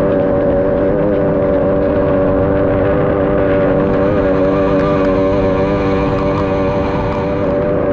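A 60 hp outboard engine on an SST 60 racing powerboat, heard from on board, running at a steady pitch at racing speed, with the rush of water and wind under it.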